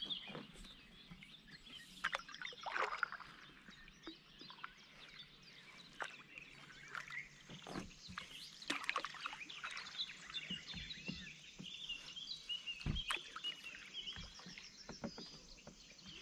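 Several songbirds singing, many short chirps and trills overlapping, with scattered knocks and splashes of a paddle against the canoe.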